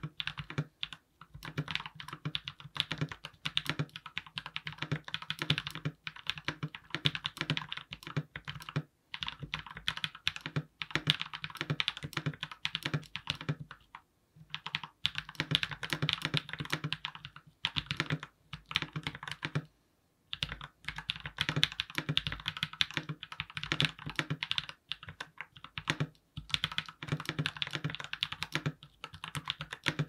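Typing on a Glorious GMMK Pro mechanical keyboard with hand-lubed switches: a dense run of key clacks that breaks off briefly a few times.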